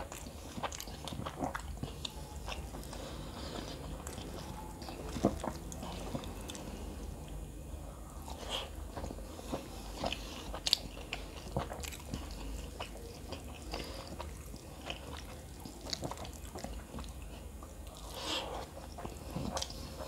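Close-miked mouth sounds of a man eating kottu roti by hand: irregular wet smacks, bites and crunches as he chews, a few louder than the rest. A steady low hum runs underneath.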